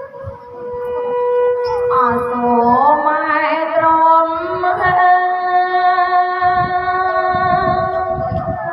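A woman singing a Khmer wedding song into a microphone over instrumental accompaniment. She sweeps up about two to three seconds in and holds one long note for most of the rest.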